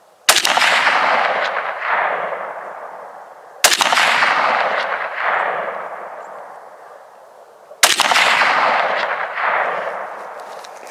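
Three rifle shots from a high-power hunting rifle, about three and a half to four seconds apart, each report followed by a long echo that rolls away and fades slowly.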